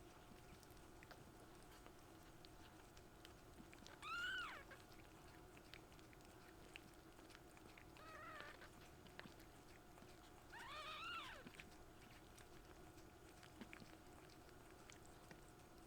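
Young kitten mewing three times: short high calls that rise and fall, about 4, 8 and 11 seconds in, the first the loudest.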